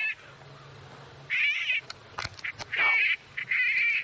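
Game call for coyotes playing a high, wavering animal distress cry in short bursts, three of them plus the tail of one at the very start, with a few sharp clicks between the second and third.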